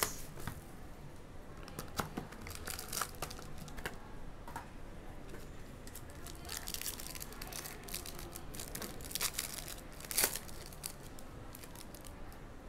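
An Obsidian Basketball hobby box and its sealed card pack being opened by hand: the wrapper tears and crinkles, with scattered small clicks and rustles as the cards are handled.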